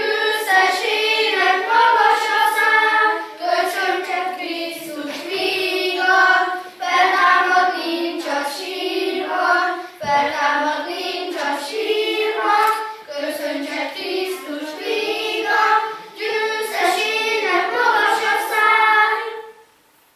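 A group of children singing a song together; the singing stops about a second before the end.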